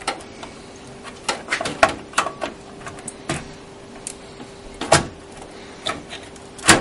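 Scattered clicks and knocks of a graphics card being handled and fitted back into a computer, the loudest knock near the end, over a faint steady hum.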